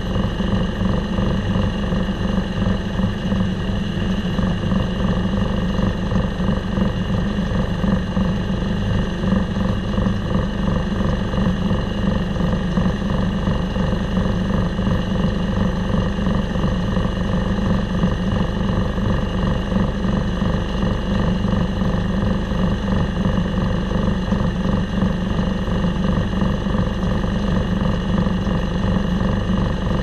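Diesel engine powering a circle sawmill, running at a steady speed with no load change.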